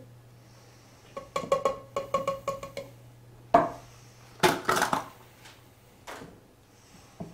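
Oil glugging out of a bottle into a glass in a quick run of pitched gulps lasting about two seconds. Then the bottle is set down with a knock, followed by a brief clatter of handling and a couple of small clicks.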